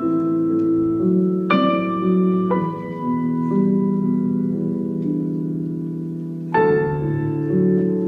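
Slow piano music for the dance: a loud chord struck about one and a half seconds in and another near the seven-second mark, each left to ring under quieter held notes.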